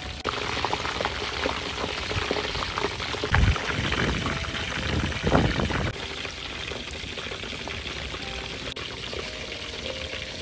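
Pork chunks on bamboo skewers deep-frying in a wok of hot oil: dense sizzling and bubbling, with two louder surges about three and a half and five and a half seconds in. About six seconds in it settles to a quieter, steadier bubbling.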